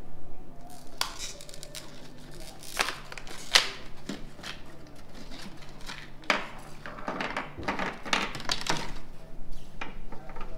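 Plastic packaging of LED bulbs being handled and opened: irregular clicks, taps and crinkles.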